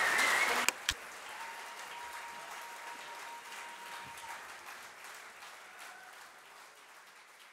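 Audience applauding, loud at first, then dropping sharply with a click about a second in to fainter applause that slowly fades out.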